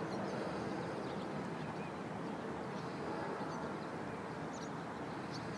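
Steady rushing background noise, with a few short high chirps scattered through it.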